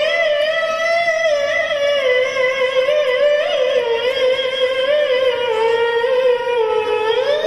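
A young boy qari reciting the Quran in tilawah style, his high voice amplified through a microphone and loudspeaker: one long held phrase without a break, wavering in ornaments, sinking a little around the middle and climbing again near the end.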